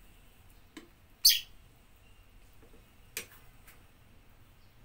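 Ladle clinking against a cooking pot while stirring soup: four short sharp clinks, the loudest about a second in.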